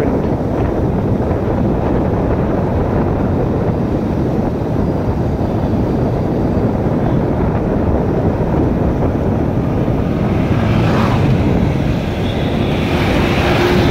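Steady rush of wind and road noise from a moving vehicle, its engine running underneath. About ten seconds in the noise grows louder and brighter as an oncoming motorbike and truck approach and pass.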